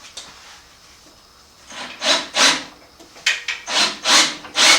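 Short scraping and rubbing strokes, about eight in the last three seconds after a quiet start, as a metal wheel spacer is worked into place between the rear wheel hub and the swingarm.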